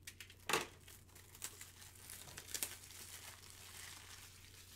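Plastic packaging crinkling and tearing, with scattered light clicks and a sharp tap about half a second in, as a fresh 100-count pack of card supplies is opened.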